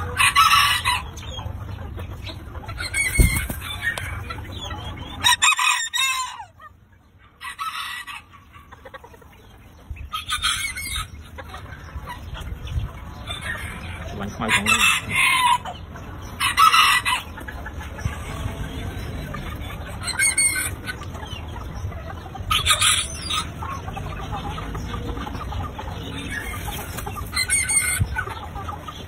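A rooster crowing and clucking in short, repeated calls every few seconds, with a brief lull about a quarter of the way through.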